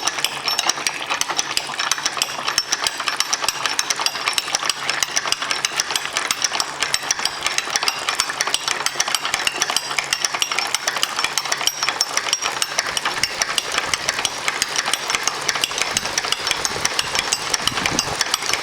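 Ratchet of a wine basket press clicking rapidly and evenly as the press is cranked down on the grape pomace.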